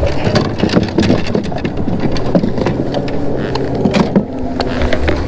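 Fishing rods and tackle being handled on a plastic kayak: a run of irregular clicks and knocks, with a steady low hum underneath.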